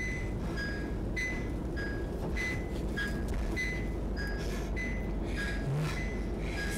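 Electronic beeping alternating between a higher and a lower note, one short beep about every 0.6 s, over the steady low rumble of a car driving.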